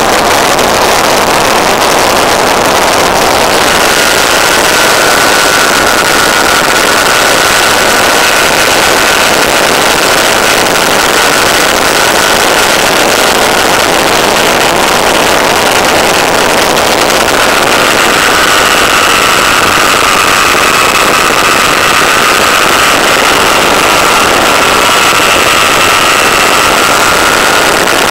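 Onboard audio from an Easy Glider RC plane in flight: a loud, steady rushing hiss of air over the airframe and microphone. A steady high whine comes in about four seconds in, fades near the middle, and returns more strongly in the second half.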